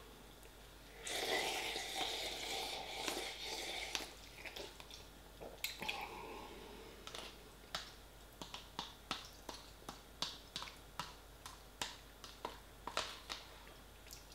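Eating instant noodles from a paper pot: a few seconds of noisy mouth sound early on, then a run of light clicks and taps as a metal fork works against the paper pot, along with chewing.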